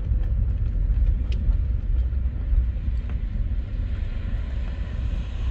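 Cabin rumble of a Skoda Citigo rolling slowly over a stony dirt lot: a steady low rumble of tyres and engine, with a few light ticks.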